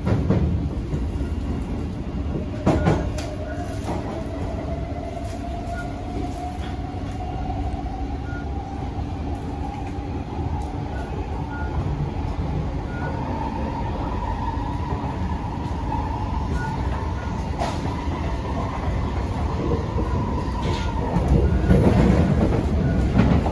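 SMRT C151C metro train heard from inside the car as it pulls away: a motor whine rises steadily in pitch for about ten seconds, then holds level over a constant rumble of wheels on rail. The rumble grows louder near the end.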